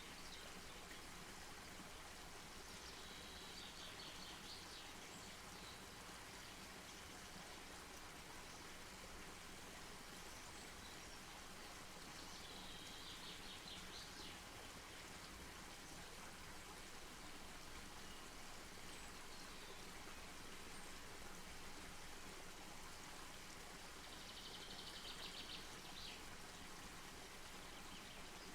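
Faint, steady hiss of outdoor ambience. A bird gives a short, rapid, high trill three times, roughly ten seconds apart.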